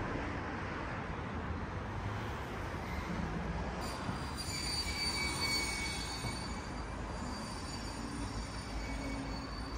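City street traffic noise, with a high-pitched squeal from a vehicle that starts about four seconds in and lasts several seconds.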